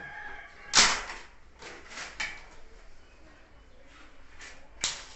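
Sharp knocks and clatters of electrical wiring work: plastic conduit, wire and tools being handled and set down, the loudest knock about a second in and a few more around two seconds and near the end.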